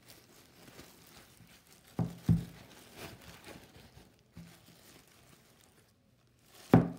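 Plastic bag and paper towel rustling and crinkling as a hard salt dough figure is handled and flipped over, with a few knocks: two close together about two seconds in and a louder one near the end.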